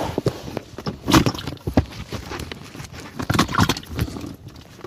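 Handling noise close to the microphone: irregular knocks, bumps and rustles of hands, clothing and fishing gear. The loudest knocks come about a second in and near two seconds, with a cluster around three and a half seconds.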